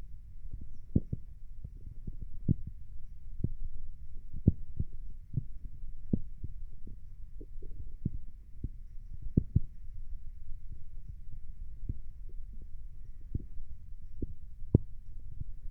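Stomach and bowel sounds heard close to the belly: a low steady rumble with irregular short pops and gurgles, about one or two a second.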